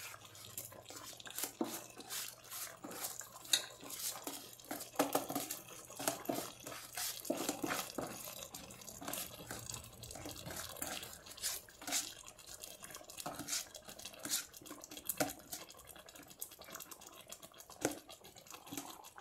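Soaked basmati rice poured in handfuls from a plastic cup into a steel pot of stock: many small irregular clicks and splashes as grains and the cup hit the liquid and the pot.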